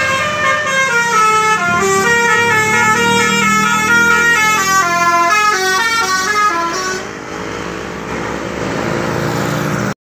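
Telolet horn on a tour bus playing a quick melody, several horn tones sounding together and changing pitch every quarter second or so, as the bus passes close. About seven seconds in the tune stops and the bus's engine and road noise carry on.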